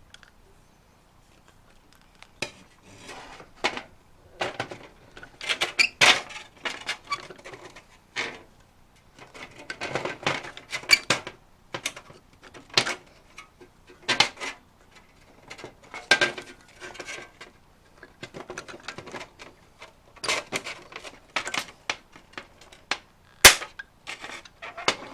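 Manual pop rivet gun being squeezed stroke after stroke, its jaws clicking and clattering as they draw the rivet's mandrel through and flare the rivet. Near the end, a single sharp snap, the loudest sound, as the mandrel breaks off and the rivet is set.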